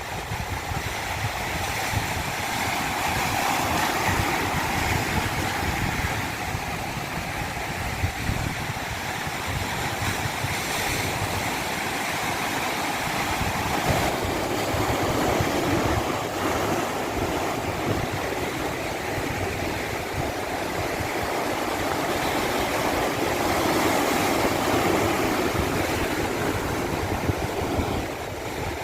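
Rushing natural water: a steady wash of noise that swells and eases slowly every several seconds.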